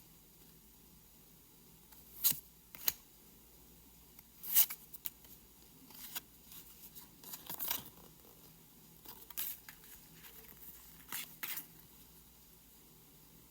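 Pokémon trading card booster pack and cards being handled: a scattered series of short, crisp rustles, snaps and tearing sounds of foil wrapper and card stock, the loudest about two and four and a half seconds in.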